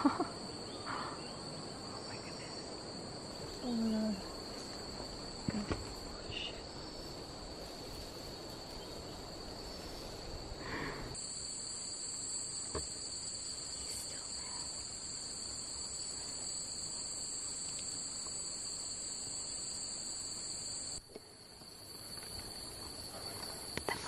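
Steady, high-pitched drone of rainforest insects, whose pitch pattern changes abruptly twice. A short low sound breaks in about four seconds in.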